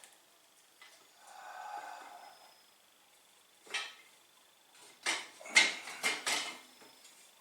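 Metal parts being handled: a soft scrape about a second in, a single knock, then a quick run of loud metallic clanks and knocks.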